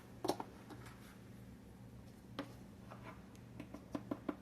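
Faint light clicks and taps of kitchen handling. There are a few single clicks, then a quick run of small taps near the end.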